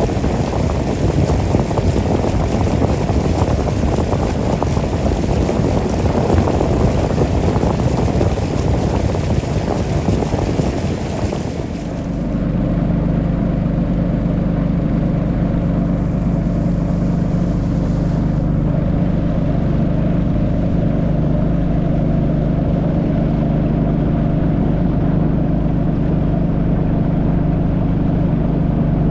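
A motorboat engine running steadily under way. For about the first twelve seconds a loud rushing of wind and water covers it, then the rushing drops away and the engine's steady note is heard clearly.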